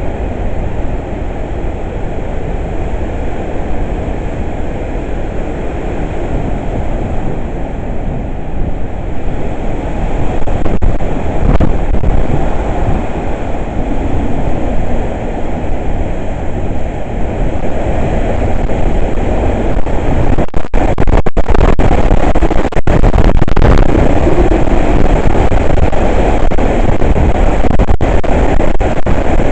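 Hurricane-force wind blowing hard, with a deep, steady rushing rumble buffeting the microphone. It grows louder in stronger gusts about ten seconds in and again from about twenty seconds on.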